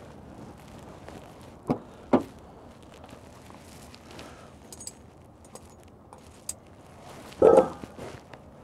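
Police SUV's rear door being unlatched and opened, with two sharp clicks about two seconds in, then light metallic jingling of keys or clips while the officer works inside. A loud thump comes near the end as the police dog jumps out onto the pavement.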